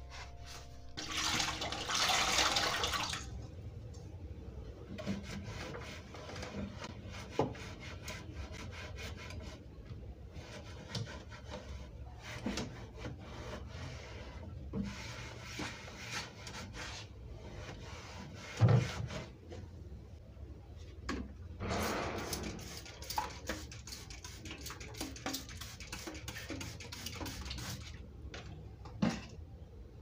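Hands sorting papers and then cleaning a wooden kitchen cabinet. Paper rustles about a second in; later a cloth rubs over the cabinet shelves, with scattered clicks and knocks and one louder thump a little past halfway.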